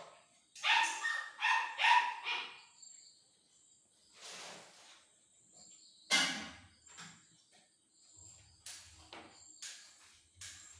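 A run of about five short animal calls in quick succession, then a few more single calls later.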